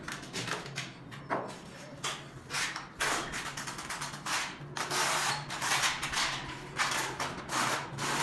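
Steel trowel scraping and combing wet cement tile adhesive across a concrete floor in repeated strokes, each about half a second to a second long.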